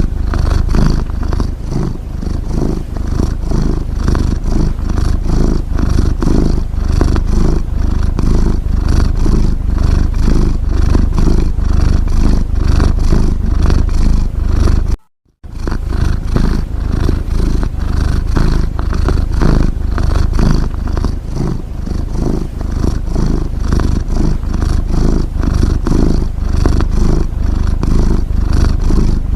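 A domestic cat's rapid, rattling, purr-like sound, close up and continuous, with a brief cut-out about halfway through.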